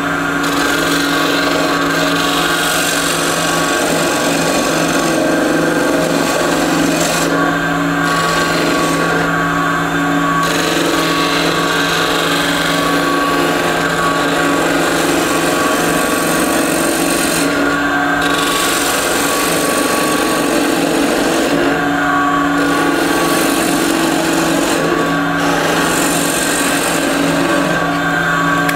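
Wood lathe running with a steady motor hum while a turning tool cuts into the spinning wood of a bocote pendant and its waste block, a continuous scraping hiss. The cut breaks off briefly several times as the tool comes off the wood.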